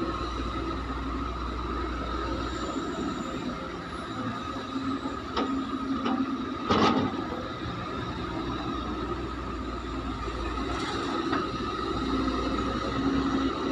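Case excavator working: its diesel engine and hydraulics run steadily with a constant whine, and a loud knock comes about seven seconds in, after two smaller clicks.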